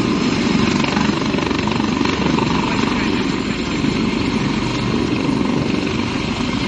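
Helicopter lifting off at close range, a loud steady rotor chop over engine noise as it sways just above the ground in a gust.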